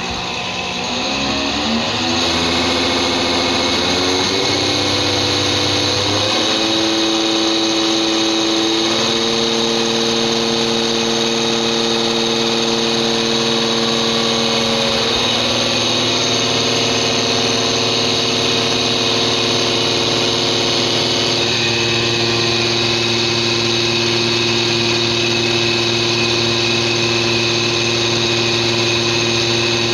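A diesel injection pump test bench running a truck's fuel injection pump while the pump's delivery is being set. It makes a steady machine hum and whine that rises in pitch over the first couple of seconds, then shifts pitch in several steps as the speed is changed.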